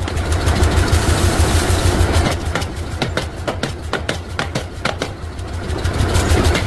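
Forge-shop machinery running with a steady low hum under a rapid, irregular series of sharp knocks. A hissing rush fills the first two seconds or so.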